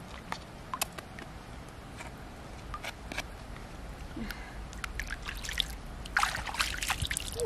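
Shallow water trickling and dripping off a large pearl mussel as it is lifted from the water, with small scattered splashes. Near the end comes a denser burst of splashing from a hand in the water.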